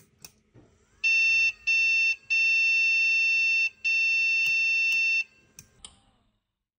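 Fujitsu Ergo Pro x453 PC's system beeper sounding its power-on beep code: two short beeps followed by two long beeps on one high steady tone. With the RAM removed, this is the no-memory beep code, a sign that the CPU is running.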